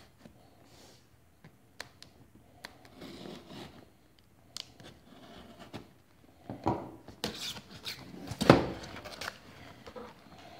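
A cardboard shipping box handled and opened by hand: scattered taps and scrapes, then a run of rustling and crackling from about six and a half seconds in, loudest a little past eight seconds, as the flaps are pulled open onto shredded-paper packing.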